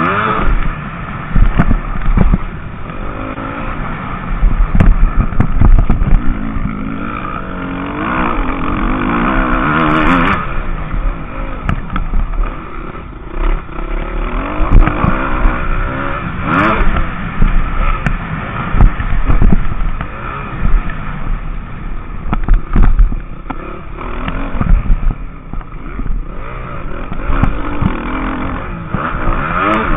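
Motocross bike engine heard from on board at race pace, the revs repeatedly climbing and dropping with the throttle and gear changes, with frequent knocks as the bike jolts over the rough track.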